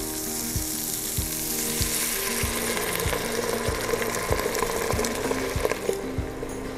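Bone-marrow stock ladled into a hot pot of sweated onion, celery and carrot, sizzling hard at first and dying down near the end.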